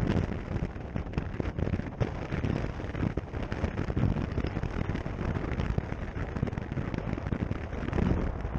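Wind buffeting the microphone of a rider on a moving Zero SR/F electric motorcycle: a dense, irregular low rumble with choppy gusts.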